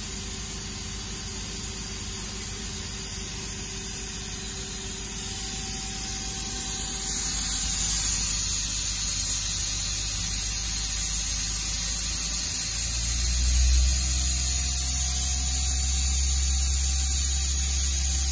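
Mazak QTN-200MY CNC turning center's main spindle running with no cutting, its speed set at 3000 rpm, giving a steady electric whine and hum. The low hum grows louder about two-thirds of the way through.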